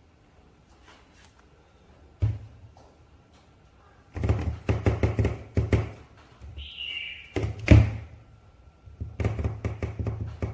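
Clicks and knocks from handling an action figure and its packaging: one sharp knock about two seconds in, then three bursts of rapid clicking and tapping, with a short squeak in the middle.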